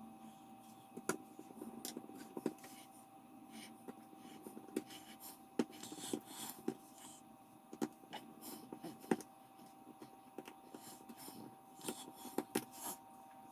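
Small irregular clicks, ticks and light scrapes of a precision screwdriver and tiny screws being driven in to fasten a smartphone's back plate, with a faint steady tone.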